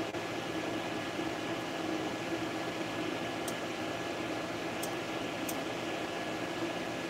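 Creality FDM 3D printer running a print: a steady whir from its cooling fans with a humming tone from the motors as the print head moves. Three faint high ticks come in the second half.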